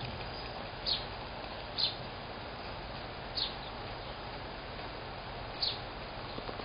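Four short, high-pitched chirps, each slightly falling, a second or two apart over a steady hiss.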